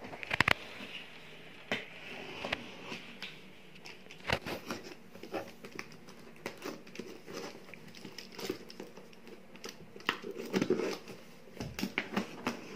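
Box cutter blade scoring and slicing through packing tape on a cardboard box: irregular scratching and crinkling with scattered sharp clicks, busiest about ten seconds in.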